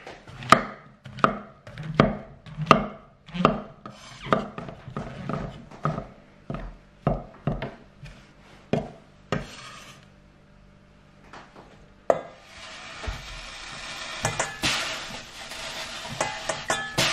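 Heavy cleaver chopping brown mushrooms on a wooden butcher block: steady knocks, about one and a half a second, for the first ten seconds. From about twelve seconds in, fat sizzles in a stainless steel frying pan and grows louder, with a few light clicks.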